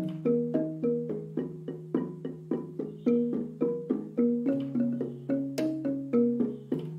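Background music: a quick run of struck, pitched mallet-percussion notes, about three or four a second, over a held low note that steps down about halfway through and back up near the end.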